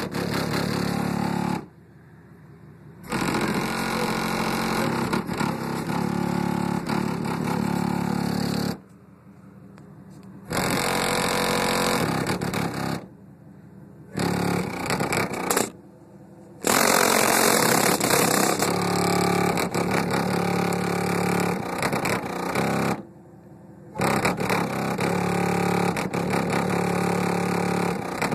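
Two Kicker Solo-Baric L7 12-inch subwoofers, driven by a Sundown SAE-1200D amplifier, playing loud bass-heavy music that is heavily distorted on the phone microphone. The bass cuts out for a second or so about five times.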